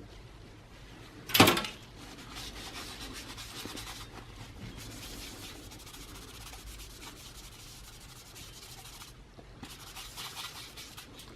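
Alcohol-dampened paper towel rubbed briskly over the base of a CPU heatsink, a fine scratchy rubbing that wipes off old thermal compound. It runs for about seven seconds, pauses briefly, then starts again. A single sharp knock comes about a second and a half in.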